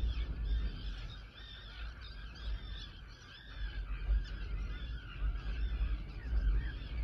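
A flock of geese calling continuously, many short honking calls overlapping, with an uneven low rumble of wind on the microphone.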